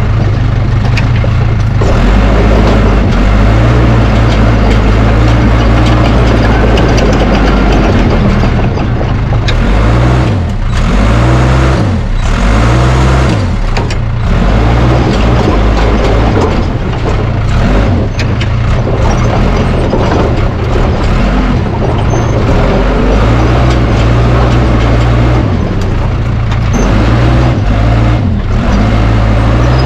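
Case 550G crawler dozer's diesel engine running loud and continuous, its pitch dipping and coming back up a few times, mostly a little after a third of the way in and again near the end.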